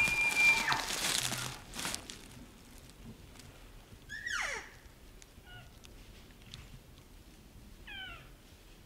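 Elk calling: a high, held bugle whistle that breaks into a raspy scream in the first two seconds, then a long falling mew about four seconds in and a shorter one near the end.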